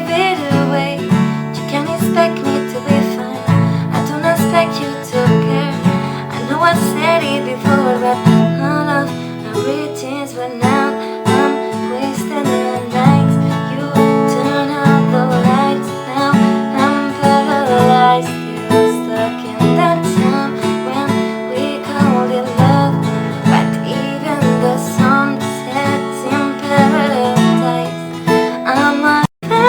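Acoustic guitar strummed steadily through a song's chord progression. The sound drops out for a split second near the end.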